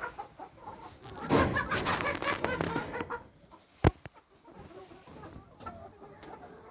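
Chickens clucking, with a louder, noisy burst of calls about one to three seconds in and a single sharp knock about four seconds in.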